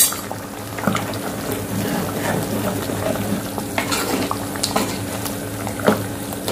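Metal ladle stirring a thick curry of mutton, dal and vegetables in a steel pot, with a few sharp clinks of the ladle against the pot. A steady low hum runs underneath.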